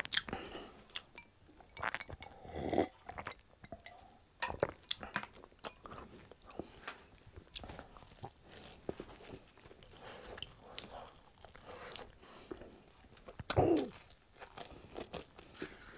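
Close-miked chewing and crunching of food, with many small sharp bite and mouth clicks, and a louder, deeper mouth sound about three seconds in and again near the end.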